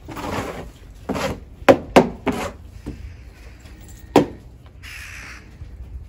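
Several sharp knocks, three in quick succession about a second and a half in and one more about four seconds in, among shorter rustling noises, with a brief hiss about five seconds in.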